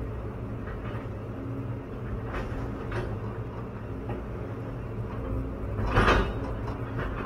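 CAT 316EL excavator's turbo diesel engine running steadily under load, heard from inside the cab, with scattered knocks and rattles. About six seconds in there is a louder, rougher burst lasting under half a second.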